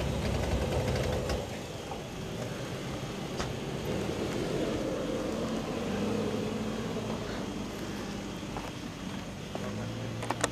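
Off-road vehicle's engine running at low speed, heavier for the first second and a half and then settling to a steadier, lower hum, with a sharp click near the end.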